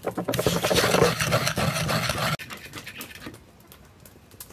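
Metal spoon stirring and scraping a wet chili sauce in a wooden mortar: a quick run of rough scrapes that stops abruptly about two seconds in.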